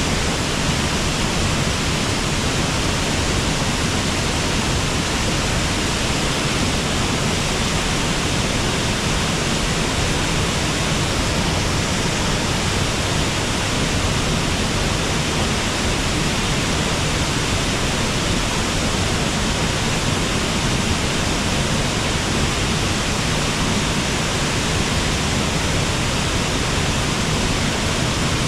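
Water rushing over a waterfall: a steady, even wash of noise that does not change.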